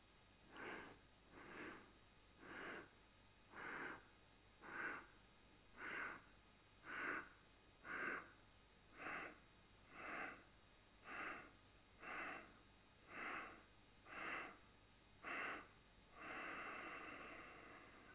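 A person doing yogic stepwise breathing: faint short breaths in separate strokes, about one a second, as the breath is moved alternately into the abdomen and the chest. Near the end comes one longer, continuous breath.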